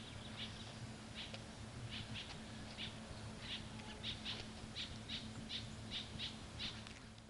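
A bird chirping over and over in short, high chirps, a few a second, over a steady low hum.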